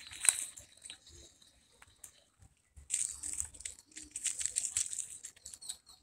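Dry fallen leaves and grass rustling and crackling underfoot in irregular bursts, with a sharp crackle just after the start and a busier stretch from about three seconds in.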